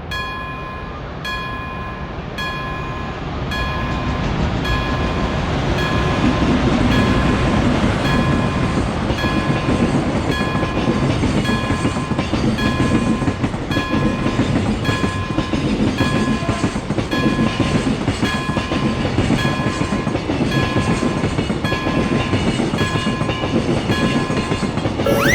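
Railroad crossing's warning bell ringing in an evenly repeated ding, while a passing train's running noise builds from a few seconds in and carries on to the end.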